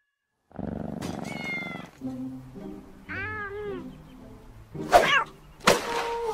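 A cat meowing several times after a brief silence, with two louder, sharp sounds near the end.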